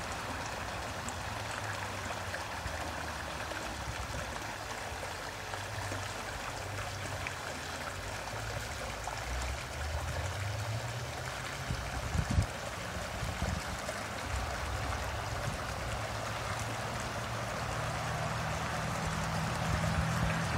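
Shallow brook running over rocks: a steady rush and burble of flowing water, with one brief knock about twelve seconds in.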